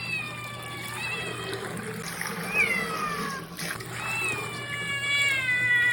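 Cats yowling in protest at being bathed: a run of long, drawn-out meows that slide down in pitch, about four calls, the last one the longest.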